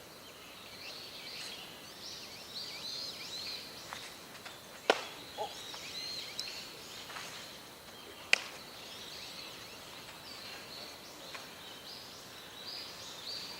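Outdoor ambience with birds chirping, broken by two sharp smacks about three and a half seconds apart, one about five seconds in and one about eight seconds in.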